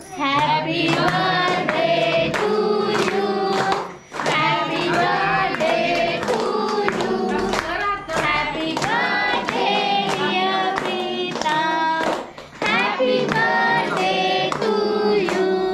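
A group of voices singing together, with handclaps keeping time, pausing briefly between lines about four seconds in and again near the end.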